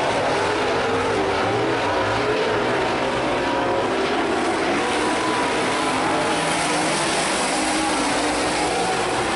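Several super late model dirt-track race cars' V8 engines running at once, their pitches wavering and overlapping in a steady, loud din.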